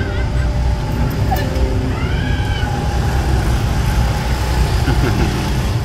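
Steady low mechanical rumble, with a short high rising-and-falling cry about two seconds in.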